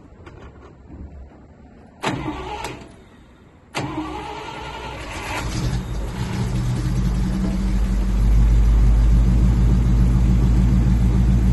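1970 Dodge D500 truck engine on a freshly swapped battery, cranked briefly about two seconds in. It is cranked again near four seconds and catches, growing louder over the next few seconds, then settles into a steady run.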